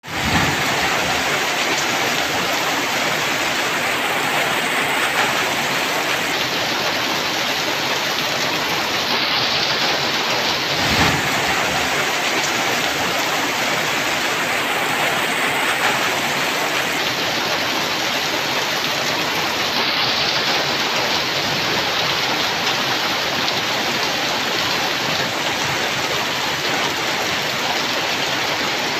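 Steady downpour of rain falling on leafy trees, an even, unbroken hiss.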